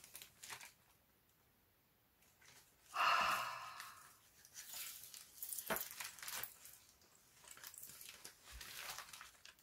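A woman weeping quietly: sniffles and shaky breaths, the loudest about three seconds in, with soft paper rustling.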